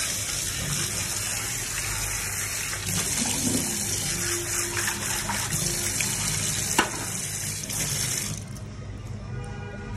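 Tap water running hard into a stainless steel sink as a tray is rinsed under the stream, with one sharp knock about two-thirds of the way in. The flow drops off sharply near the end.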